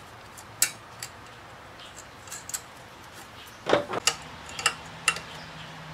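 Scattered light metallic clicks and taps of a tool and terminal hardware being fitted to the welder's rectifier plate, irregularly spaced, with one louder knock a little past the middle.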